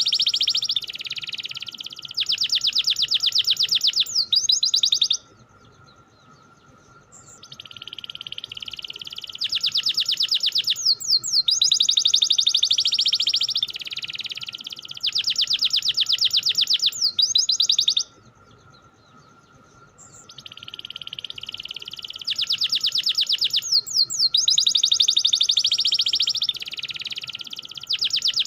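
Domestic canary singing long phrases of fast rolling trills, broken by two short pauses, about 5 and 18 seconds in. A faint steady high tone runs underneath.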